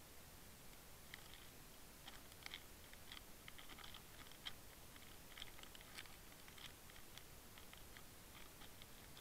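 Near silence underwater: a faint hiss with scattered, irregular soft clicks and crackles, picked up by a camera in a waterproof housing.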